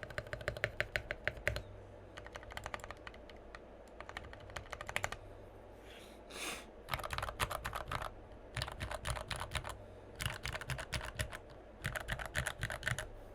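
Fast typing on a custom mechanical keyboard with Gateron Ink Black linear switches: runs of rapid keystrokes broken by a few short pauses.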